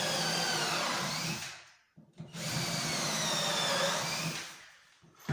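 Electric drill boring through wooden floorboards into the joist below, in two runs of about two seconds each with a short pause between. The motor's whine drops in pitch as the bit bites into the wood.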